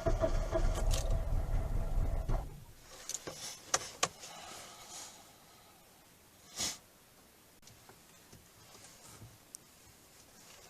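A vehicle engine running with a low pulsing rumble in deep cold, cutting off about two and a half seconds in. After it come a few sharp clicks and a short hiss.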